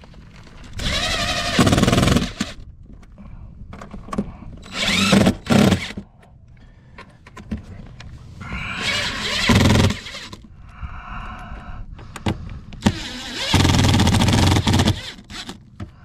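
Cordless impact driver driving screws through a port plug's flange into metal diamond plate, in four runs of one to two seconds each, its motor whining up in pitch as each run starts.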